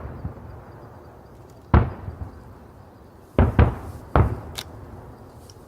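Aerial firework shells bursting overhead: four booms, one about two seconds in, then three in quick succession a second and a half later, each followed by a rolling echo.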